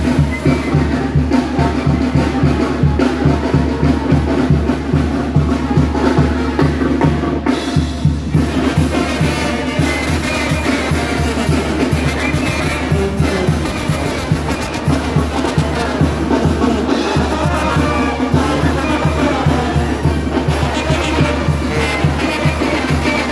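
Live brass band playing dance music, with bass drum and snare drum keeping a steady beat.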